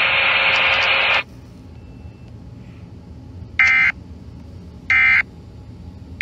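Weather radio hiss that cuts off suddenly about a second in, followed by three short, identical screechy bursts of data tones about a second and a half apart: the digital end-of-message code that closes a flash flood warning broadcast.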